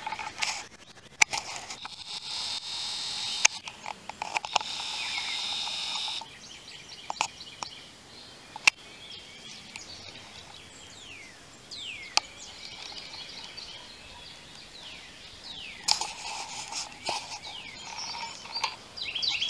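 Songbirds calling outdoors: many quick down-slurred chirps and a few longer stretches of high song, with several sharp clicks scattered through.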